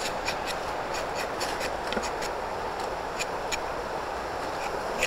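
Rubber tapping among the trees: a steady rasping scrape with irregular sharp clicks and crackles over it.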